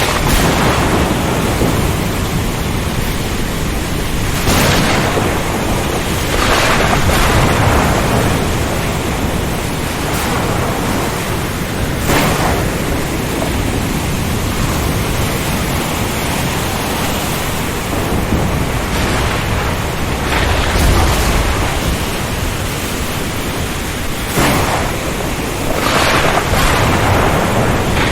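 Storm at sea: a steady roar of wind, rain and surf, with several brief louder surges a few seconds apart.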